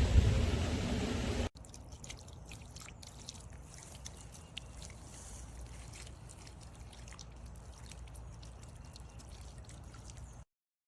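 A loud low rumble for about a second and a half, then a cut to quiet light splashing and dripping of water in a garden bird bath, with scattered faint ticks. The sound stops dead near the end.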